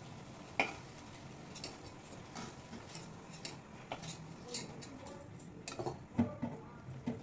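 Metal spatula tapping and scraping against a metal kadai as fried fritters are lifted out of the hot oil: scattered sharp clicks, loudest in a quick cluster about six seconds in.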